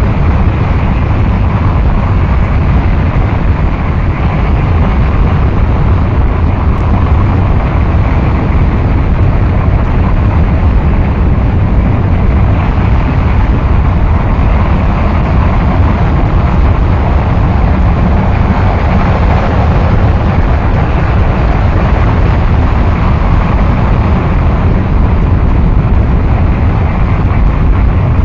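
Harsh noise wall: a loud, unchanging wall of dense noise, heaviest in the bass and thinning toward the top, with no beat, melody or voice.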